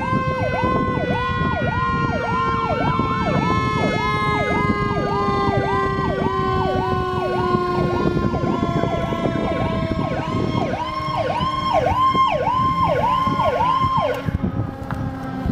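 Fire engine sirens sounding together: a fast yelp siren sweeping up and down about two and a half times a second, over a second siren tone that slowly falls in pitch, with vehicle noise beneath. The yelp stops about a second before the end.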